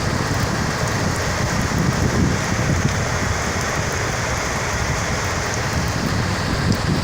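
Steady downpour of rain during a thunderstorm, an even rushing hiss with no distinct thunderclap.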